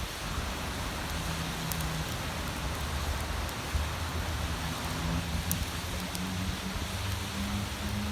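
Bonfire burning: a steady hiss with a few scattered sharp crackles from the burning wood.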